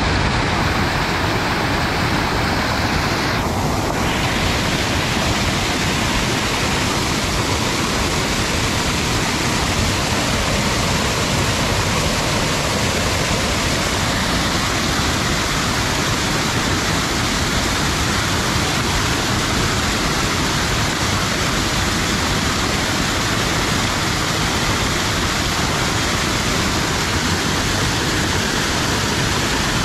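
Waterfall pouring down onto rocks: a steady, loud rush of falling water.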